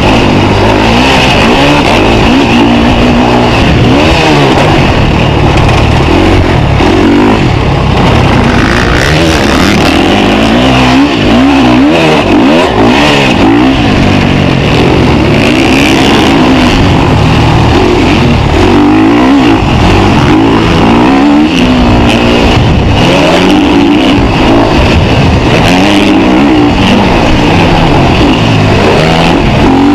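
KTM 350 SX-F's single-cylinder four-stroke engine revving hard and dropping back over and over as the motocross bike is ridden around the track, with the pitch rising under throttle and falling at each shift or corner. It is heard loud and close from the rider's helmet camera.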